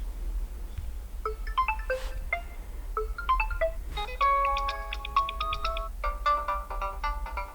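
Oppo Reno5 Z alarm tone playing from the phone's speaker: a bright, bell-like melody of short, clear notes that begins about a second in and grows busier, with several notes at once, from about four seconds.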